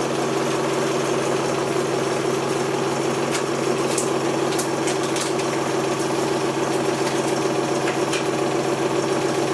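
Electric home candyfloss machine running, its motor spinning the heated sugar head with a steady hum, and a few faint ticks about halfway through.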